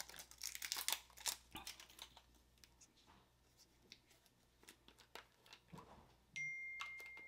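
Small squeeze bottle of sriracha sputtering and crackling as sauce is squeezed out onto dumplings: a quick run of faint wet clicks, then scattered ones. Near the end, a steady high ringing tone starts suddenly and slowly fades.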